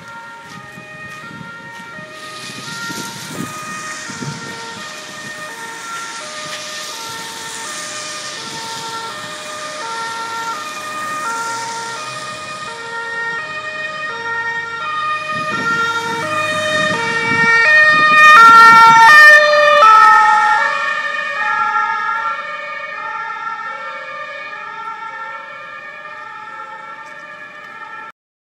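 German two-tone emergency sirens (Martinshorn) of an ambulance and an emergency doctor's car stepping between a high and a low note, out of step with each other. They grow louder as the vehicles approach, are loudest as they pass about 18 to 20 seconds in, then fade as they drive away, with road noise as they go by.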